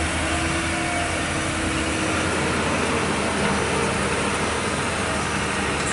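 Heavy diesel engine running steadily, with its deep hum and a wide hiss over it.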